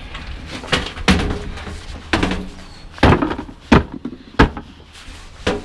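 Irregular series of loud knocks and thuds, about six in all, from junk being pulled out and knocked about in a dumpster, over a low rumble of wind on the microphone.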